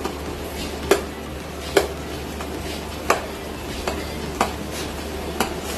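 A metal spoon stirring instant noodles in a stainless steel pot of simmering broth, clinking against the pot about six times at uneven intervals, over a steady low hum.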